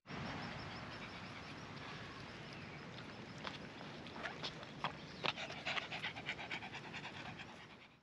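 A dog panting, quick breaths in a steady run that turn into sharper, louder puffs at about three a second in the second half.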